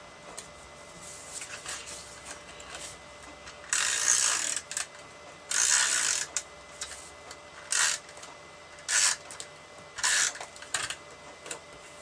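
Handheld tape runner rolled across the back of a sheet of paper in about five short strokes, the first two about a second long and the later ones briefer, each a dry ratcheting whirr of the adhesive tape feeding off. Softer paper handling sounds come before it.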